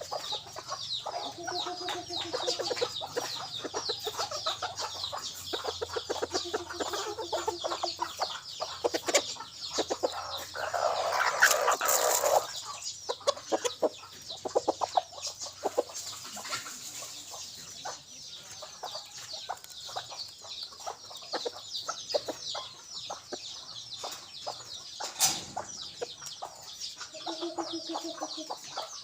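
Red junglefowl decoy rooster calling: short pitched clucks, and a louder, longer call about ten seconds in. A dense chorus of high, rapid chirps runs underneath.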